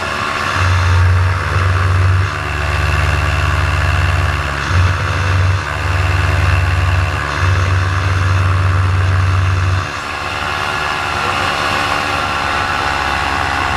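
Paramotor engine running in flight while losing power. A heavy low rumble that comes and goes under the steady engine note stops about ten seconds in, and the sound gets a little quieter after that.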